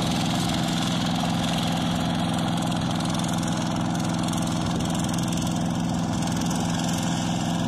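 Engine of a two-wheel hand tractor running at a steady, even speed as it works a flooded rice paddy.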